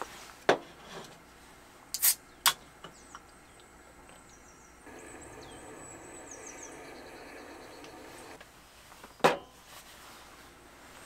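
A Coca-Cola aluminium can being handled: a sharp click about half a second in and two more about two seconds in. About nine seconds in comes a single sharp knock as the can is set down on the camp table, the loudest sound here.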